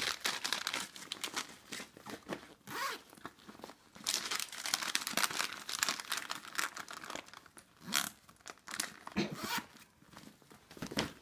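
Crinkling and rustling of plastic candy packets and paper as hands pack them into a handbag, coming in bursts, the longest stretch from about 4 to 7 seconds in.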